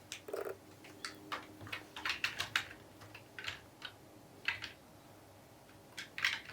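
Plastic LEGO pieces clicking and clacking as they are handled and pressed together, in irregular light clicks, a few in quick clusters.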